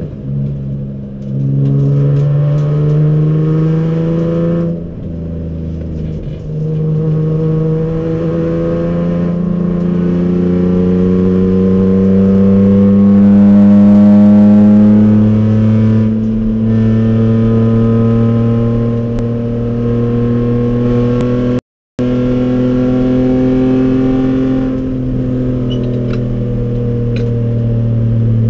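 BMW race car's engine heard from inside the cockpit, pulling hard under load with the revs climbing steadily as the car accelerates down the track. There is a short lift about five seconds in, and the recording cuts out for a split second about three-quarters of the way through.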